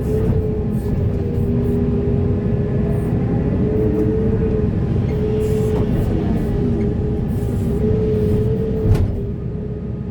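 Large hydraulic excavator running under load: a heavy diesel engine drone with a steady, slightly wavering hydraulic whine, and a single sharp knock about nine seconds in.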